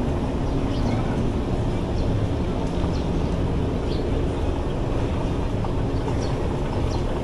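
A small engine running steadily: an even, low mechanical hum with no change in speed, with a few faint high ticks over it.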